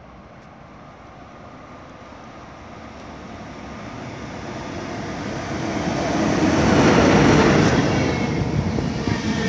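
A locomotive-hauled passenger train pulling into a station: its running noise on the rails grows steadily louder as it approaches, is loudest as the locomotive passes about seven seconds in, and carries on as the coaches roll by.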